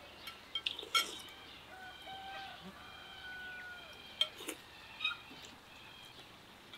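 A rooster crows once, about two seconds in, a drawn-out call in a few held parts that falls at the end. Spoons clink against bowls now and then.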